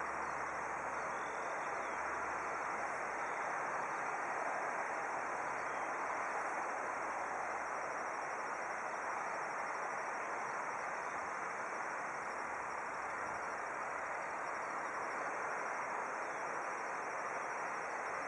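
Distant jet airliner engines running as the aircraft taxis, a steady rushing roar with no rise or fall, with faint high chirps over it.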